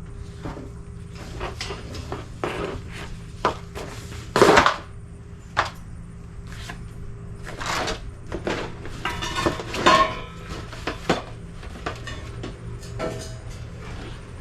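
Clatter and knocks of a lawnmower grass-catcher bag and its frame being handled and fitted together, with scattered clicks. A louder rattle comes about four and a half seconds in and a stretch of scraping around ten seconds, over a steady low hum.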